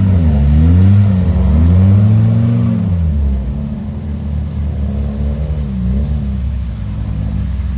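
Lada Niva engine revving up and down while driving off-road: several swells in pitch over the first three seconds, then running steadier with a couple of short dips.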